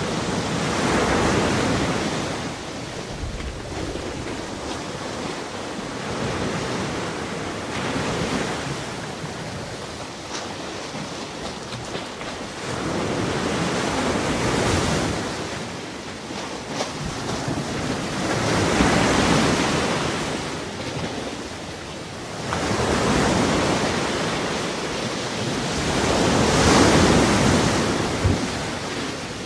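Ocean waves breaking on the shore: a rushing surf that swells and falls away about five times, every few seconds, with wind behind it.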